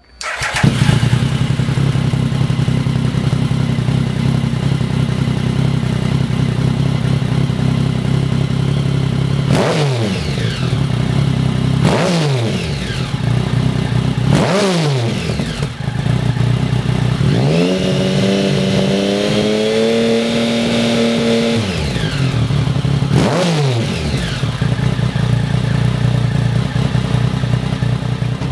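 2013 Triumph Speed Triple's 1050 cc three-cylinder engine idling through a Lextek SP1 aftermarket silencer. It is revved in quick throttle blips that rise and fall back to idle: three blips, then a rev held for about four seconds, then one more blip.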